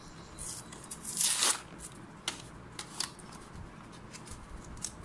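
Stiff clear plastic blister packaging crinkling and crackling as it is handled and cut open with a craft knife. There is a louder crackle about a second in, then short scrapes and clicks.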